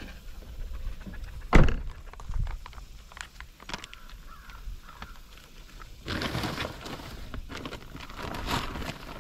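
Someone handling things at a vehicle: a sharp knock, a scatter of light clicks, then a longer rustle near the end. Crows caw faintly in the middle.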